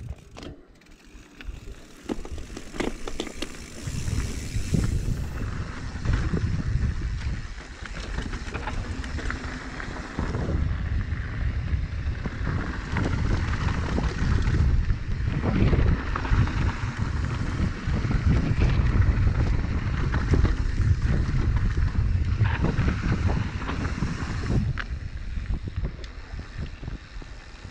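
Mountain bike descending a dirt trail at speed: wind buffeting the microphone with a heavy rumble, and the tyres and frame clattering over bumps and roots. It grows louder about two seconds in.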